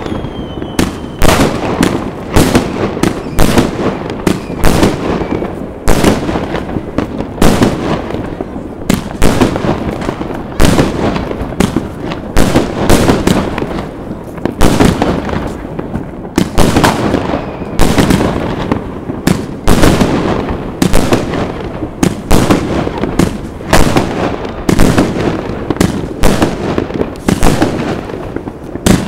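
Fireworks and firecrackers going off in a dense, irregular barrage of sharp bangs, several every second, over a constant crackling rumble.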